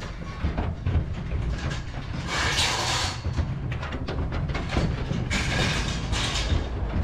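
Lambs shuffling inside a metal livestock trailer: hooves knocking and clattering on the metal floor and sides in many short, uneven knocks. Twice there is a stretch of louder rushing, hissing noise, and a low rumble runs underneath.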